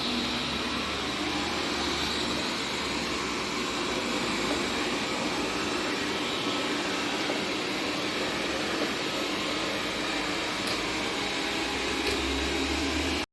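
Xiaomi Mi Robot Vacuum-Mop Pro robot vacuum running: a steady whir with a thin high whine, cutting off suddenly at the end.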